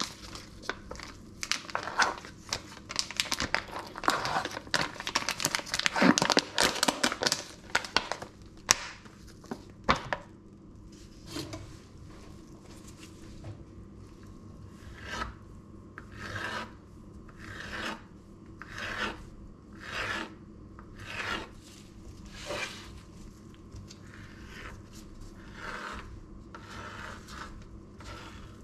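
A plastic packet of sliced deli meat crinkling and tearing as it is pulled open. Then a knife rasps through the meat slices on a wooden cutting board in a series of strokes, about one a second.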